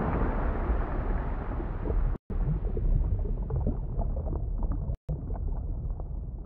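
Underwater water-and-bubbles sound: a low, muffled rumble with small bubble pops scattered through it, fading down. It cuts out for a split second twice, about two seconds in and about five seconds in.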